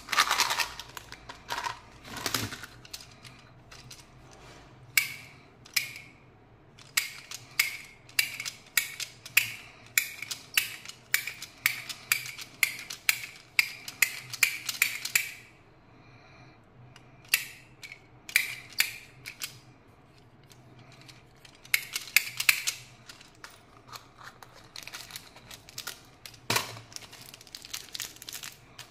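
Hard plastic candy toys and containers handled close up: runs of sharp plastic clicks, about two a second, each with a brief ring, broken by short pauses.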